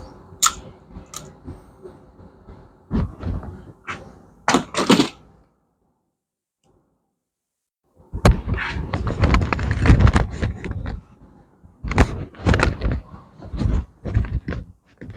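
Tools and parts being handled at a workbench: irregular clicks, knocks and rustling, with a silent gap of about two seconds in the middle.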